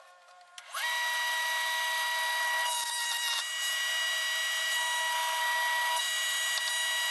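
Benchtop jointer switched on about a second in, its motor whining up to speed and then running steadily as a board is pushed across the cutterhead.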